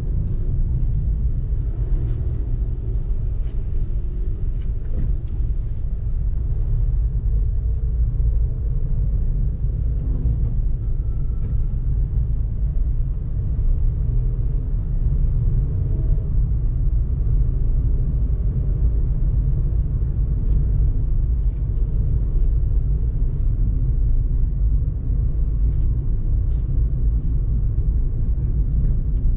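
Steady low rumble of a car driving, heard from inside the cabin: engine and road noise, with faint light ticks here and there.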